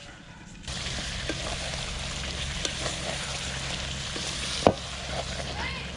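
Chicken drumstick masala, cooked without water, sizzling in a metal kadai over a wood fire while being stirred with a wooden spatula. The sizzle starts suddenly under a second in. A few light scrapes and one sharp knock of the spatula against the pan come a little before the end.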